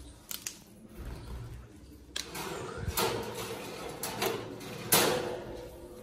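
Fresh lucerne (alfalfa) greens rustling as they are pushed into a wire birdcage, with sharp clicks and rattles from the cage, the sharpest about five seconds in.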